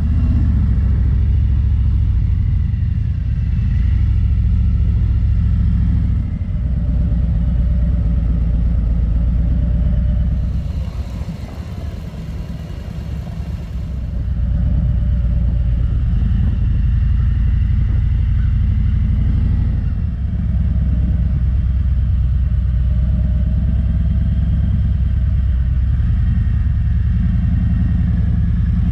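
Harley-Davidson Road King Special's V-twin engine running under way, a steady low rumble whose note rises and falls with the throttle. About eleven seconds in it drops back for a few seconds and a hiss comes through, then it picks up again.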